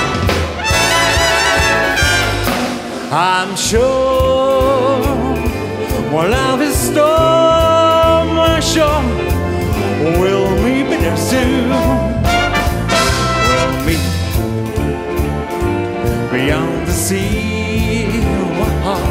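Wind band playing a swing number with prominent brass and clarinets, with a male singer on a microphone.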